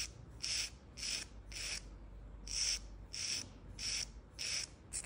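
Nail file drawn across a fingernail in slow, even strokes: eight scrapes about two-thirds of a second apart, in two sets of four with a short pause between.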